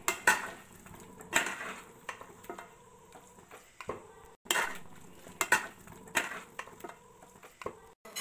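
Metal spatula scraping and knocking against a heavy uruli pan while stirring thick, nearly dry chicken masala. The strikes are irregular, about one or two a second, and the loudest come near the start and about four and a half seconds in.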